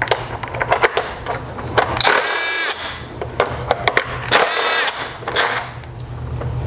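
Cordless Milwaukee Fuel power tool spinning out the two 8 mm bolts that hold the coolant pressure tank: two short motor whines, each rising in pitch as it spins up, about two seconds in and again about four and a half seconds in, with light clicks of the socket and tool handling around them.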